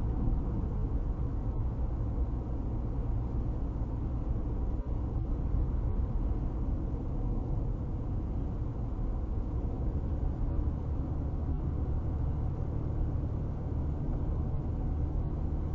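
Steady low rumble of a car driving at highway speed, about 60 mph, heard from inside the cabin.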